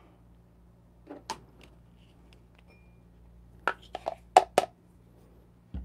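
Ground coffee knocked out of a hand grinder's catch cup into a V60 dripper: a couple of light taps about a second in, then a quick run of sharp taps near four seconds in.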